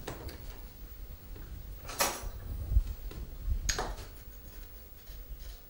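A metal spoon scooping granular rapadura sugar out of a glass jar, with two short scraping clinks about two seconds apart.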